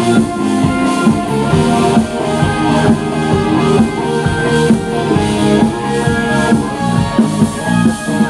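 Live rock band playing: electric guitars, a drum kit and a keyboard together, with a steady drum beat under held guitar chords.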